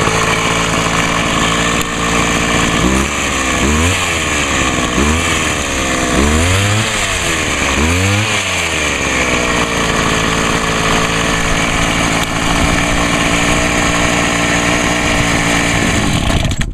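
Homelite HT-21 hedge trimmer's small two-stroke engine idling, revved up and back down five times, then idling again until it is switched off and stops abruptly near the end. It runs smoothly on its freshly rebuilt carburetor without needing any adjustment.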